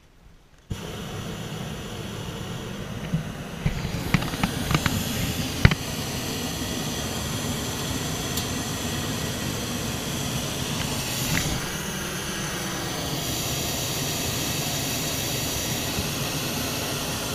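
Hot air balloon's propane burner firing with a steady, loud hiss that starts abruptly about a second in, with a few sharp knocks about four to six seconds in.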